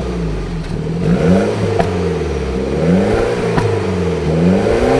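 BMW 1 Series exhaust with its vacuum-operated valve open: the engine is blipped, the pitch rising and falling about three times, giving a loud, aggressive tone. Sharp single pops come from the exhaust as the revs drop.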